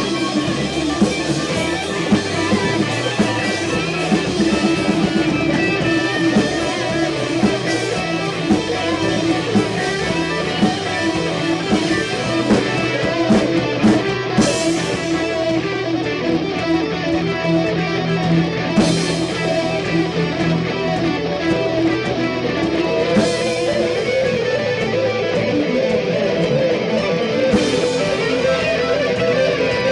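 Live rock band playing loudly: electric guitar through a Marshall amplifier, bass guitar and drums. In the second half there are strong accents about every four seconds.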